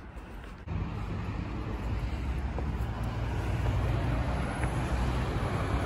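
Steady low outdoor rumble that sets in abruptly about a second in, with a few faint clicks over it.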